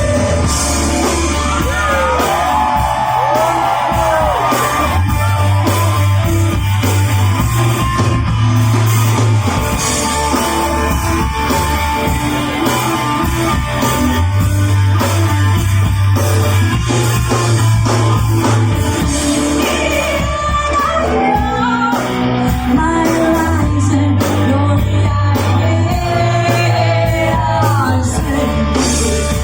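Live rock band playing a song with a lead singer, over long held bass notes and guitar.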